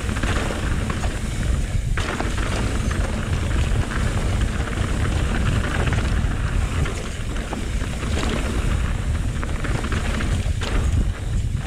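Wind rumbling over the camera microphone on a fast mountain-bike descent, with tyres rolling over a rocky dirt trail and the bike rattling in scattered short clicks over the bumps.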